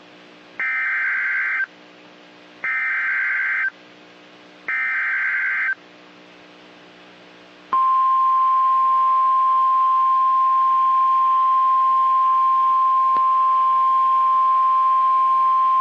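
Emergency Alert System SAME header: three buzzing digital data bursts, each about a second long. About halfway through, the NOAA Weather Radio 1050 Hz attention tone begins and holds steady and loud. It signals that a severe thunderstorm warning is being broadcast.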